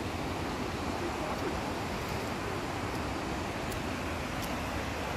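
A mountain stream rushing over rocks: a steady, even rush of water.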